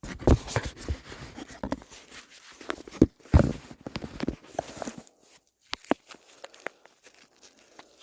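Plastic wrapping being fiddled with and pulled at on a wristwatch: irregular rustling and crinkling with sharp clicks and taps, busy for the first five seconds, then a few scattered clicks.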